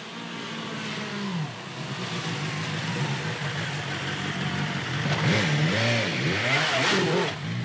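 Motorcycle engine running at low revs as the bike rolls up close, then revved in several quick throttle blips, the pitch rising and falling, from about five to seven seconds in.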